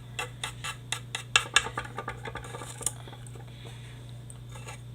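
A knife clicking and scraping against a cardboard firework mortar and the black powder chunks inside it: a quick run of small, sharp clicks over the first three seconds, then only a few, over a low steady hum.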